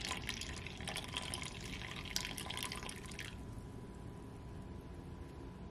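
Water running from a kitchen tap and splashing in a sink, shut off suddenly about three seconds in.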